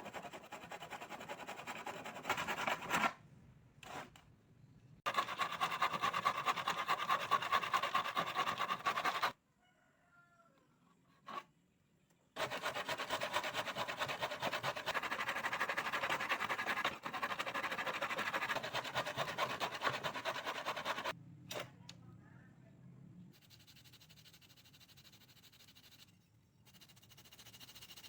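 Tekiro miter saw cutting through material in several bursts: a short one at the start, one of about four seconds and one of about eight seconds, each starting and stopping abruptly, with quieter gaps between.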